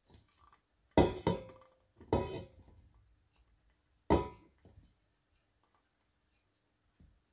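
Dish-on-pot clinks: a plate and wooden spatula knock against a large stainless steel pot as dandelion flowers are scraped into it. There are four sharp clinks, each with a short metallic ring, the loudest about a second in.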